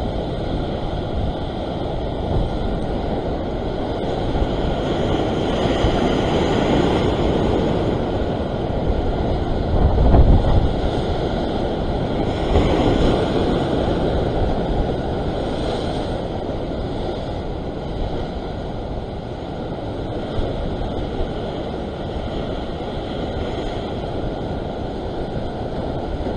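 Ocean surf surging and washing over coastal rocks, swelling and easing every few seconds, with wind buffeting the microphone. The heaviest low rumble comes about ten seconds in.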